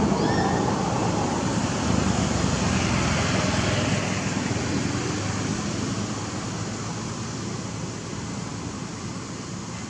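Steady engine-like rumble with hiss, gradually fading over several seconds, like a vehicle moving away.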